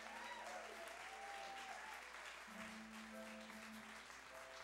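Audience applauding after a spoken reading, with music playing over it; held low notes come in about halfway through.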